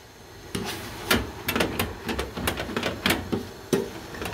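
Wooden spoon knocking and scraping against a stainless steel pot while stirring fresh jute mallow leaves. It starts about half a second in as a quick, irregular series of clicks and taps.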